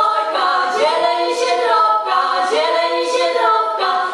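Three young female voices singing a Polish Christmas carol together a cappella, holding long notes in harmony.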